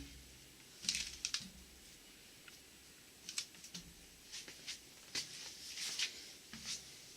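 Scattered light clicks and clinks of metal transmission parts being handled and set down, a dozen or so short sharp ticks at uneven intervals.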